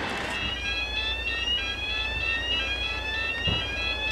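Railway level crossing warning alarm sounding: an electronic tone rising in pitch, over and over, with a steady low rumble beneath.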